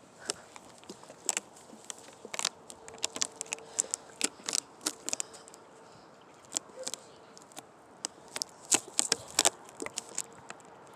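Thin plastic water bottle crinkling and crackling as it is squeezed in the hand: irregular sharp clicks and pops, the loudest about nine seconds in. A faint steady buzz sits underneath for stretches.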